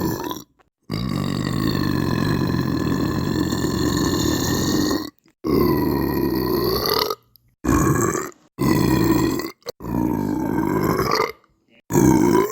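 A person belching again and again in long, drawn-out belches. One goes on for about four seconds near the start, followed by about five shorter belches in quick succession.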